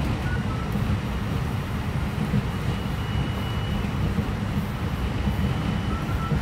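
Interior running sound of a JR West 223 series 2000-subseries electric multiple unit at speed: a steady low rumble of wheels on rail and running gear, with a faint high steady whine from about two and a half seconds in.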